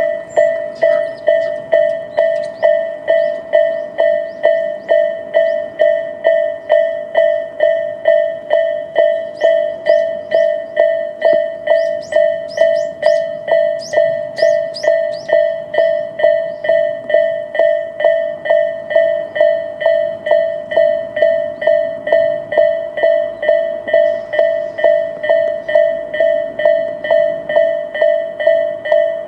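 Japanese railway level-crossing warning bell, the electronic Tobu 'sound A' type, ringing a steady, evenly repeated ding about twice a second. This signals that the crossing is active for an approaching or passing train.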